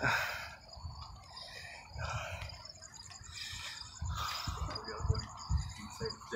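High, fast, evenly pulsing chirping in the background, over the rustling and low thuds of someone walking with the phone.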